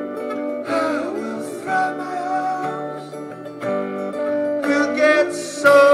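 Live band music over a PA system, with strummed acoustic guitar, keyboards and drums, between sung lines of a pop song.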